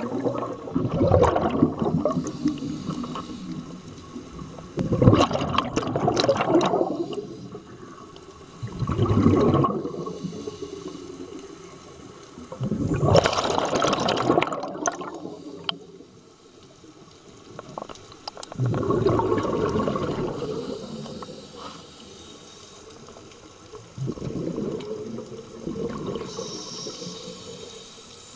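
Scuba diver's exhaled breath bubbling out of the regulator underwater: a burst of gurgling bubbles every four to five seconds, six in all, with quieter stretches between breaths.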